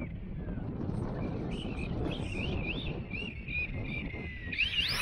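Birds chirping, a string of short rising chirps in the middle and again near the end, over a steady low rumbling background.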